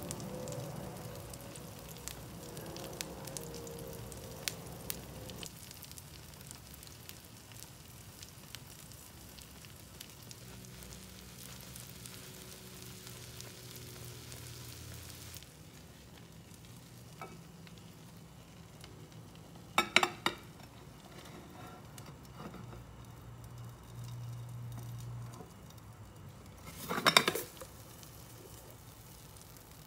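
Egg omelette frying in oil in a non-stick pan: a steady sizzle while a spoon pushes and scrapes the egg. The sizzle dies down about halfway through, and two sharp clatters come near the end.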